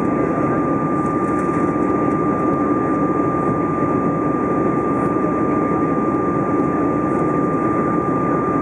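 Steady in-flight cabin noise of an Airbus A320 heard from a window seat: an even rush of engine and airflow, with a thin, steady high whine running through it.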